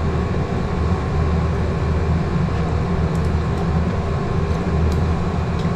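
Steady low roar of a gas stove burner under a simmering pot of soup, with a few light clicks of a ladle against the pot about three to five seconds in.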